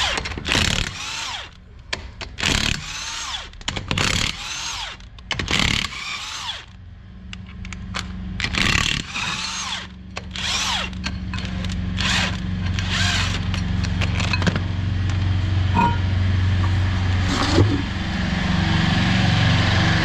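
Impact wrench in repeated short bursts, each spinning up and down in pitch, undoing the wheel nuts on a Ford Transit's front wheel. The bursts come thick for the first seven seconds and only now and then after. A steady low hum sets in from about seven seconds and grows louder.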